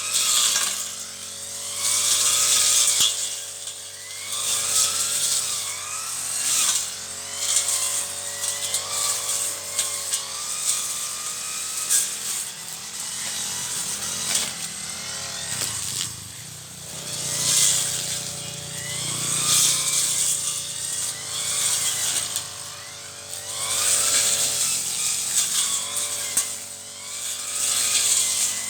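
Brush cutter (motorised grass trimmer) running while cutting weeds. Its engine note and cutting noise swell and ease every few seconds as it sweeps through the growth.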